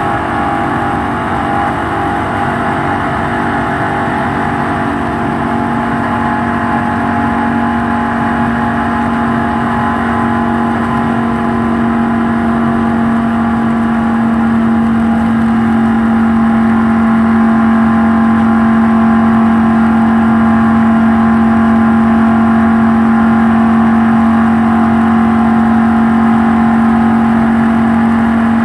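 Stock car's V8 engine running flat out at a steady, unchanging pitch as it laps the oval, with rushing noise beneath; it grows slightly louder about halfway through.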